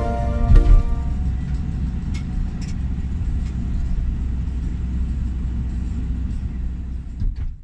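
Steady low rumble of a moving vehicle's engine and tyres on the road, heard from inside the vehicle. Background music notes trail off in the first second, with a couple of low thumps about half a second in.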